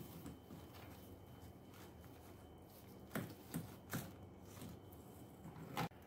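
Plastic suction tubes of a Kärcher WD1 wet-and-dry vacuum being handled and fitted together: a few sharp clicks and knocks from about halfway in, the loudest just before the end.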